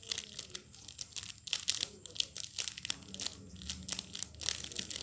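Hands kneading and stretching sticky homemade slime with glitter mixed in, making irregular crackling, squelching pops.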